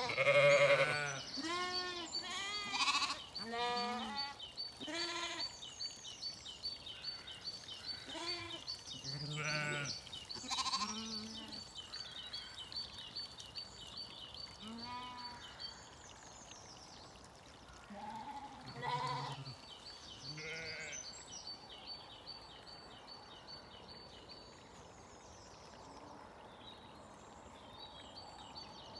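Zwartbles ewes and lambs bleating, some calls deep and others higher, many in the first half and fewer and fainter later on.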